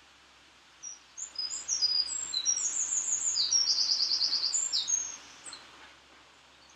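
A songbird singing: a run of quick high notes and rapid trills, starting about a second in and ending about four seconds later.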